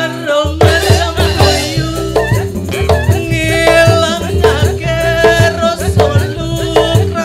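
Balinese joged bumbung gamelan playing: struck bamboo xylophones in a dense run of notes, with drum strokes and jingling cymbals.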